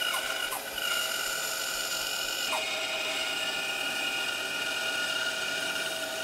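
Bandsaw running and cutting through two stacked pieces of plywood: a steady mechanical whine whose pitch drops slightly about two and a half seconds in.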